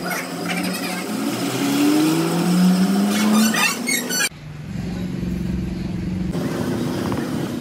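A motor vehicle engine accelerating, its pitch rising steadily for about three seconds, with a few light clanks near the middle. It then gives way to a steady engine drone.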